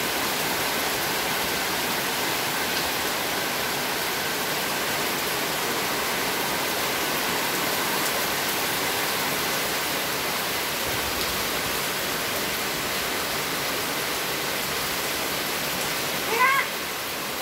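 Heavy tropical rain pouring steadily onto paving stones and broad leaves, a constant dense hiss. About a second before the end, a short rising squeal rises above it.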